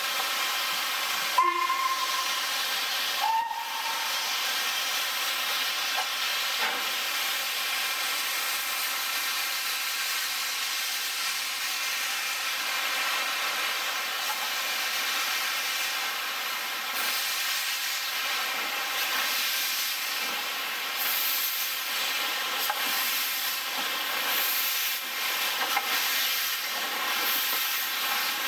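Steam locomotives hissing steadily as steam escapes around them, with two short steam-whistle toots about one and a half and three and a half seconds in. The hiss grows brighter and more uneven near the end as a locomotive moves past.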